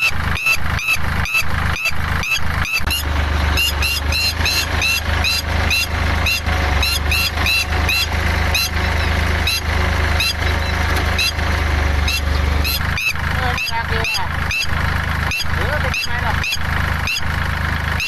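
Red-wattled lapwing giving loud, repeated alarm calls, about three a second, defending its nest and egg. A tractor engine's low drone runs close underneath from about three seconds in and stops about thirteen seconds in.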